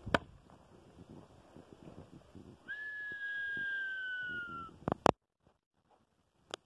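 One long whistled note, falling slightly in pitch over about two seconds. A couple of sharp clicks follow, then the sound drops out for about a second.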